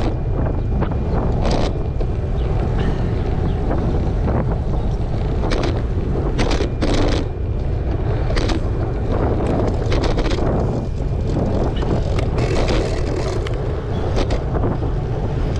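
Wind buffeting the microphone of a moving action camera: a steady low rumble with scattered brief rushes of hiss.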